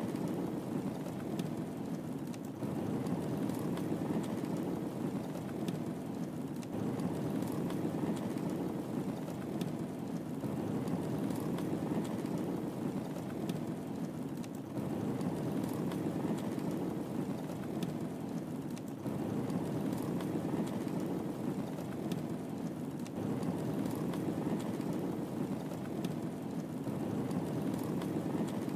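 Wood fire burning in a fireplace: a steady low rumble with faint, scattered crackles.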